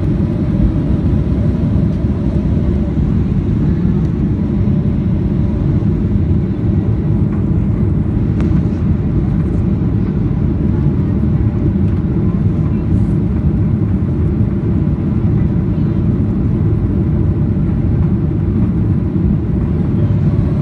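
Cabin noise of a Boeing 737-800 at takeoff thrust, lifting off and climbing out: its CFM56-7B engines give a loud, steady low roar through the cabin, with a faint steady whine above it.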